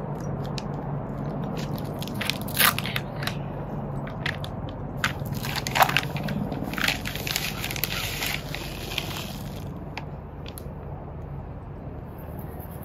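Plastic bag of granular soil acidifier crinkling and crackling as it is handled. About halfway through, the granules pour out of the bag into the bed's soil with a few seconds of steady hiss.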